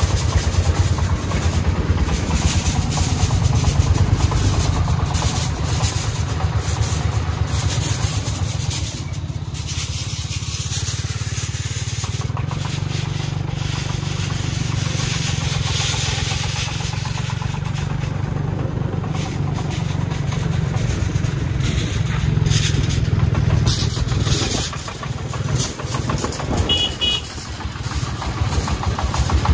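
Single-cylinder diesel engine of a three-wheeled công nông farm truck running steadily while hauling a load, with a rapid, even chugging.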